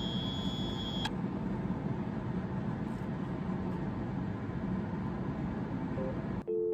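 Steady rumbling whoosh of a kitchen fan running, with a thin high whine that stops about a second in. It cuts off near the end and piano music begins.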